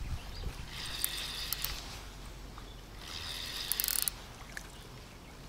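Spinning reel being wound in two short spells while a hooked carp is played on a bent rod, its gears whirring and ticking.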